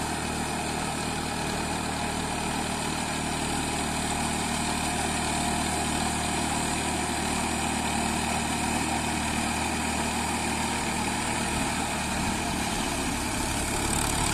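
Tractor diesel engine running steadily as the tractor works across a flooded paddy field on steel cage wheels, puddling the mud.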